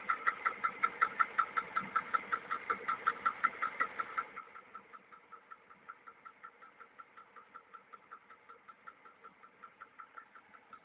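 VAZ-2103 four-cylinder engine idling with a fast, even knocking tick at every turn, a knock of unknown cause that the owner asks about. About four seconds in the knocking drops much quieter but keeps its rhythm.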